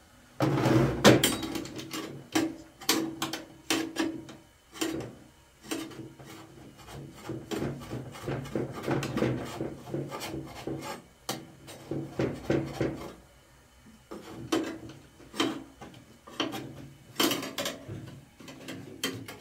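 A metal spatula scraping and clicking against a large metal cooking tray as flatbreads are turned and pressed while they cook. Repeated short scrapes and taps, loudest about a second in, with a few brief pauses.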